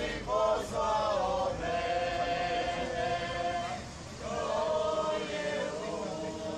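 A group of voices singing a hymn together in long held notes, with a short break about four seconds in.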